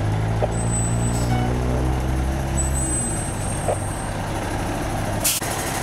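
Heavy diesel engine of a fire engine idling with a steady low rumble. A short hiss comes about five seconds in, after which the rumble drops away.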